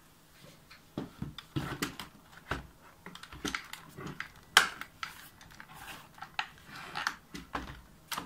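Plastic clicks, knocks and key clatter as a Microsoft Ergonomic Keyboard 4000 is handled and its palm rest is pressed and pried at during disassembly. The sharp, irregular clicks come at no steady rhythm, and the loudest knock is about halfway through.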